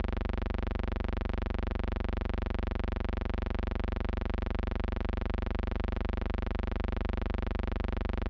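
Steady electrical hum and buzz: a low drone with many even overtones that never changes, a mains hum on the soundtrack rather than any sound from the flight deck.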